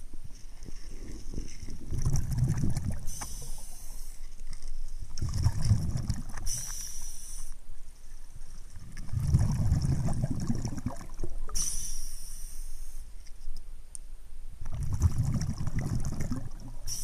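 Underwater scuba regulator breathing: a short high hiss on each inhale, then a low bubbling rumble of exhaled air, repeating about every four to five seconds.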